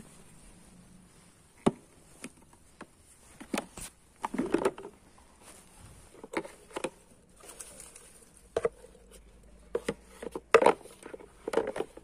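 Scattered plastic clicks and knocks, with some rustling, from handling a Supra canister vacuum cleaner's clear dust container full of grass clippings, with the vacuum's motor switched off. The loudest knocks come near the end.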